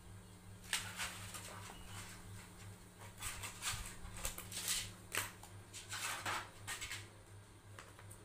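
Scissors snipping through a sheet of embossed silver foil, a series of crisp irregular cuts and crinkles as the foil is cut and handled, stopping about a second before the end.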